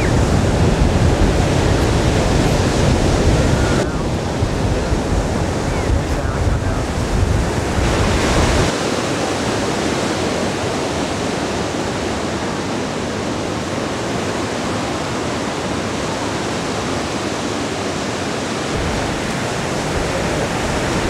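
Big ocean waves breaking and crashing into white water, a steady wash of surf noise. Wind rumbles on the microphone for the first several seconds and drops away about nine seconds in.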